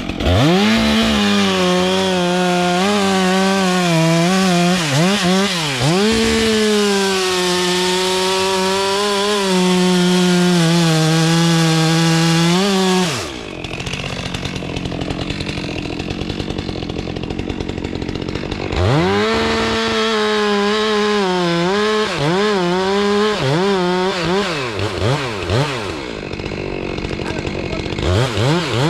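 Two-stroke gas chainsaw revving and cutting into a tree trunk, its pitch sagging and recovering as the chain loads up. About 13 s in it drops back, then revs and cuts again from about 19 s in.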